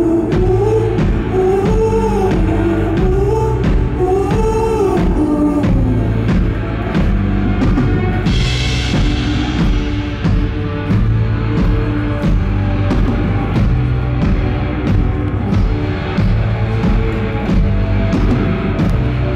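Live band performing a pop-rock song with drum kit: a wordless sung vocal line over the band for the first few seconds, then the band plays on without vocals, with steady drum beats and a cymbal crash about eight seconds in.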